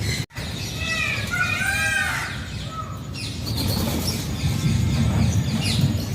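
Alexandrine parakeet calling: a quick run of short, arching squawks starting about a second in and lasting about a second and a half, after a brief break in the sound near the start.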